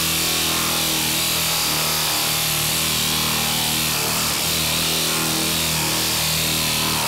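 Dynabrade 18066 pneumatic straight-line sander running steadily while sanding body filler, with a loud hiss of exhausting air over a steady motor hum. The pitch sags briefly about two and four seconds in.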